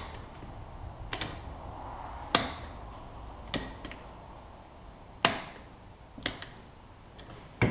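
Sharp metal clicks and clacks from a hand-operated pistol-barrel test fixture as an empty primed case is loaded and the firing lever is worked, about seven in all, spaced a second or so apart. No primer report is heard: the primer misfires, which the operator puts down to a bad primer and a strike that sits too high.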